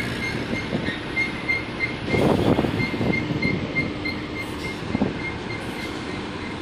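Low steady rumble of a container ship's and its tugboat's engines while berthing, with a rapid high beeping about three times a second.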